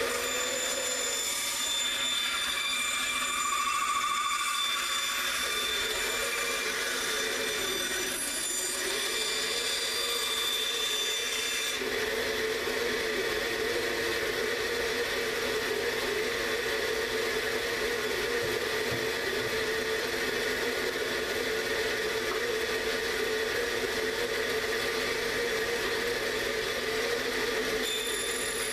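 Bandsaw running, its blade cutting a 3/4-inch wooden board. The motor's tone sags and recovers several times during the first dozen seconds as the wood is fed through, then holds steady with the saw running free.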